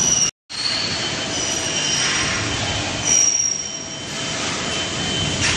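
Steady factory machinery noise with thin, high-pitched squeals that come and go and slide slightly down in pitch. The sound cuts out completely for a moment about half a second in.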